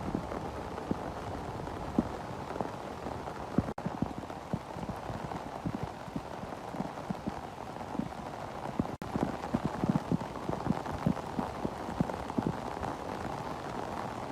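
Hailstorm: a steady downpour with many separate knocks of hailstones striking hard.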